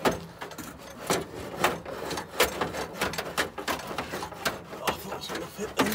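Sandpaper rubbed by hand back and forth on an exhaust pipe, scratchy strokes about twice a second, cleaning up the pipe end so a new section will slip on.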